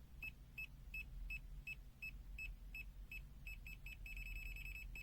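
Aneng SZ302 multimeter's buzzer beeping faintly in NCV (non-contact voltage) mode. Short high beeps come about three a second, then quicken about three and a half seconds in and run into rapid, almost continuous beeping as the detected field gets stronger.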